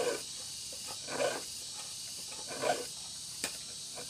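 A small metal file rasping across the teeth of a dull wood hand saw to sharpen it: short strokes about every one and a half seconds, with one sharp click near the end.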